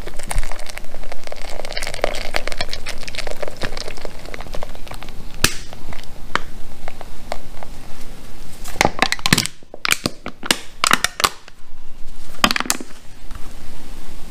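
A can of beer poured into a ceramic bowl, splashing and fizzing as it foams. After about five seconds this gives way to a run of sharp clicks and crinkles from the can being handled as the last of the beer is emptied out.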